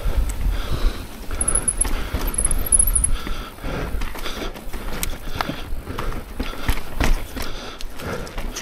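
Mountain bike riding a rough dirt trail: tyres on dirt and the bike rattling over bumps, with sharp knocks from hits and a low rumble of wind.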